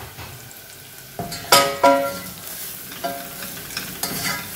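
Onions, garlic and spices sizzling in hot oil in a stainless steel saucepan while being stirred, with several sharp clinks against the pan that ring briefly, the loudest two about one and a half to two seconds in.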